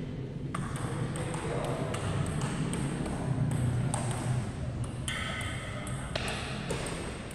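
Table tennis balls clicking: a run of sharp, irregular ticks of balls striking tables and bats, over the low hum of a large hall.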